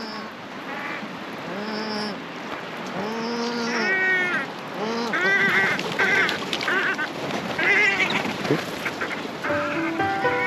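Birds calling repeatedly, a series of short harsh calls that rise and fall in pitch, over a steady hiss of rain. Music comes in near the end.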